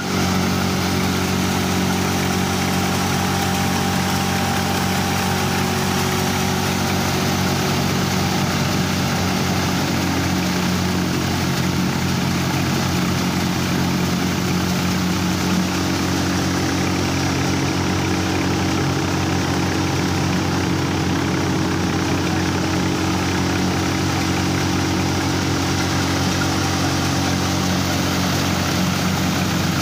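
Four-fan multi-crop cutter thresher running steadily while threshing, with grain coming out of its spout: a constant mechanical hum with a steady low drone.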